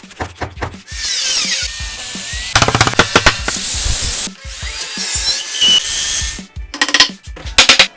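Short, abruptly cut snippets of woodworking power tools running, some with a whine that glides in pitch, over background music with a steady beat.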